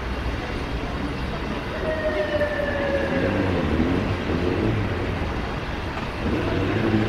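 Street traffic noise, with a police motorcycle's engine revving as it pulls out and accelerates from about three seconds in, its pitch rising and falling. A thin falling whine passes a little earlier.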